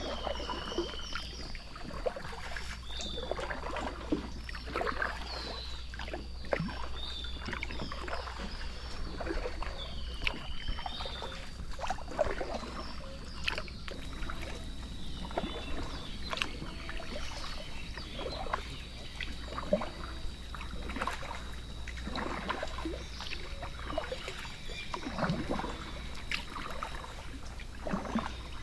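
Paddle strokes dipping into and splashing river water at an irregular pace, as a small boat is paddled downstream. A steady high tone runs underneath, with a few short chirps.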